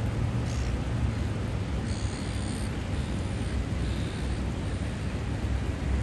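Steady roar of heavy surf breaking on the beach, with wind rumbling on the microphone. A short high chirp about two seconds in, and a fainter one near four seconds.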